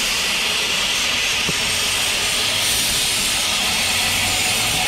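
Steam locomotive standing with steam hissing from it, a steady even hiss.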